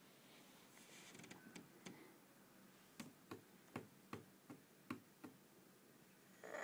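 A toddler's hand patting a wooden tabletop: faint taps, a few scattered at first, then a run of about seven at two or three a second in the middle.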